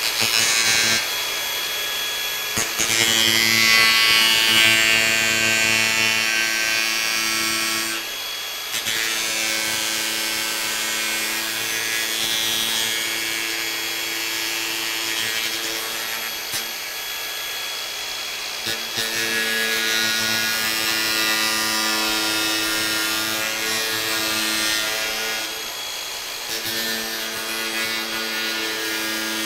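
Cordless Makita 4.5-inch angle grinder with two back-to-back 24-grit sanding discs, running under load as it grinds away the end of a white molding to rough out a coped joint. It makes a steady motor whine with a coarse sanding hiss, easing off briefly about eight seconds in and again a few seconds before the end.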